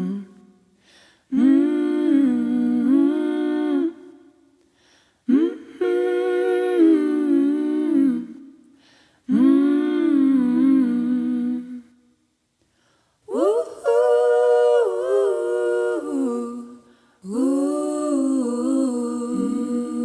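A singer humming a slow wordless melody in a recorded song, in five phrases about four seconds apart with short pauses between them.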